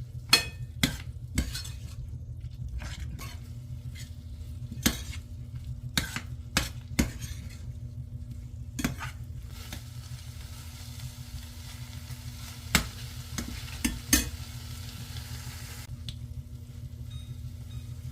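Pig's trotter pieces being stir-fried in a pan: irregular sharp knocks of a utensil against the pan over sizzling, with a steady low hum underneath. The sizzle is loudest for several seconds in the middle, then drops off near the end.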